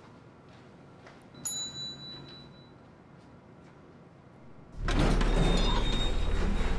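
An elevator arrival chime rings once, a single bright ding that fades over about a second. About five seconds in, a loud low rumble starts suddenly and keeps going.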